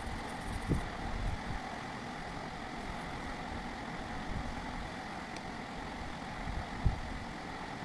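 Steady background hum and rumble with no music, broken by a few soft low thumps, the clearest about a second in and near the end.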